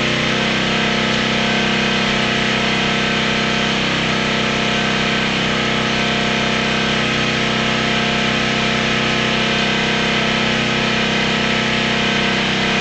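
Small gasoline engine running steadily at constant speed, belt-driving a homemade welding generator, with no change in pitch or level.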